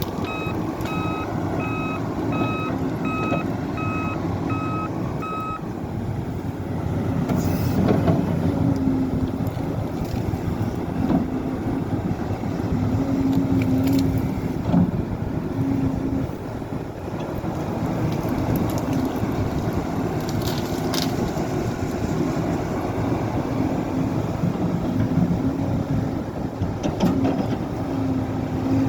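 Heavy construction machine's diesel engine running steadily, with a backup alarm beeping about eight times in the first five seconds. A few sharp knocks come through later on.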